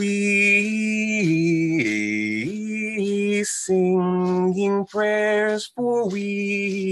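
A man singing a slow unaccompanied prayer chant, holding long notes that step down in pitch about a second in and climb back up, with brief pauses for breath.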